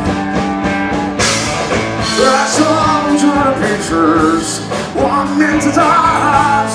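Live rock music from a band, with regular drum hits and a male lead singer who comes in about two seconds in.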